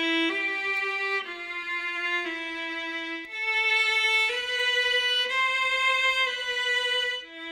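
Violin music playing a slow melody of held notes, changing pitch about once a second.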